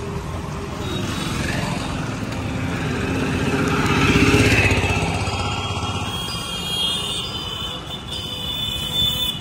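Street traffic with an auto-rickshaw passing close by, its engine growing louder to a peak about four seconds in and then fading away.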